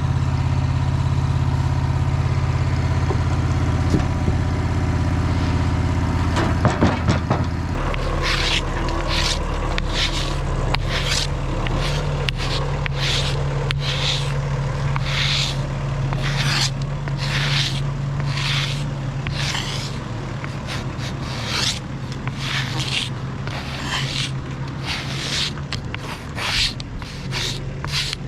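Sawmill engine running steadily, its note dropping after a few knocks about seven seconds in. From then on, short scraping strokes repeat a little more than once a second over the engine.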